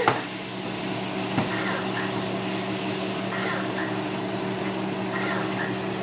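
Butter sizzling as it melts in a frying pan, pushed around with a spatula that knocks against the pan right at the start and again about a second and a half in, over a steady low hum.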